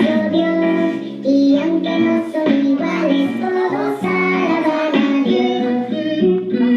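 Children singing a song about the creation of the animals, with musical accompaniment.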